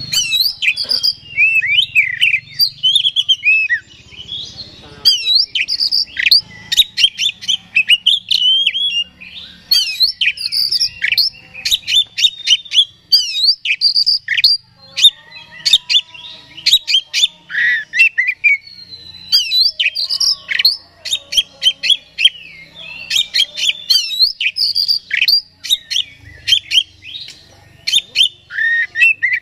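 Oriental magpie-robin singing hard: a fast, unbroken-seeming run of varied whistles, sharp clicks and chattering notes, delivered in phrases of a few seconds with brief pauses. This is the excited full song, 'gacor', that keepers play as a lure to rouse other magpie-robins.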